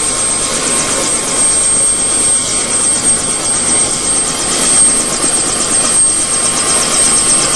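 Bell 206 JetRanger running: the Allison 250 turboshaft's steady high whine over the rhythmic chop of its two-blade main rotor.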